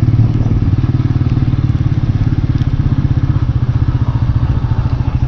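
Motorcycle engine running steadily, a fast, even train of firing pulses, as the bike rides along.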